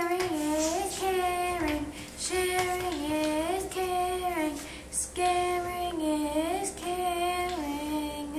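A high child's voice singing a short melody, the same few-note phrase repeated about four times.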